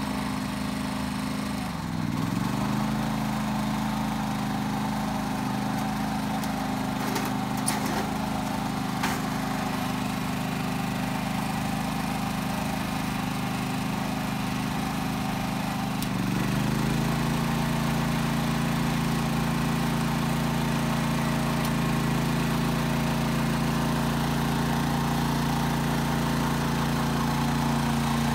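Generac GP3500 portable generator engine running steadily under load. About two seconds in its pitch dips and recovers as the first 1500-watt space heater is switched on; about sixteen seconds in it dips again when the second heater comes on, then runs a little louder and lower under the full load of both heaters. A few light clicks sound near the middle.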